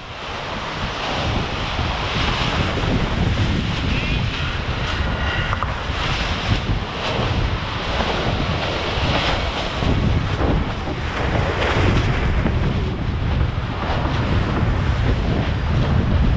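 Wind buffeting the microphone over the steady rush and splash of water along the hull of a JPK 1080 racing yacht sailing fast downwind under spinnaker.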